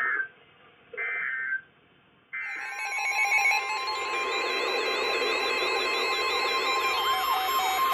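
Emergency Alert System data bursts: short buzzing bursts of the end-of-message code, repeated about a second apart. About two and a half seconds in, a steady mix of alert tones with held notes and gliding, warbling pitches starts and carries on.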